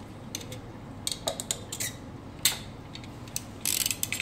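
Hand cutters clicking and snipping as cable-tie ends are trimmed, with light knocks of the tool; the loudest click comes about halfway through and a quick run of clicks near the end, over a steady low hum.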